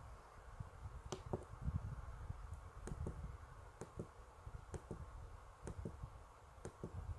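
Faint, irregular clicks with soft low knocks, one or two a second: keys being pressed on an EV-K100 bar-type mobile phone.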